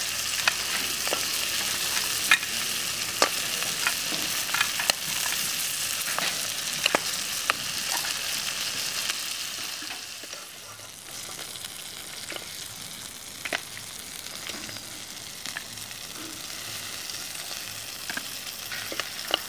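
Food sizzling in hot oil in a pan, a steady hiss dotted with sharp crackling pops, dropping to a quieter sizzle about halfway through.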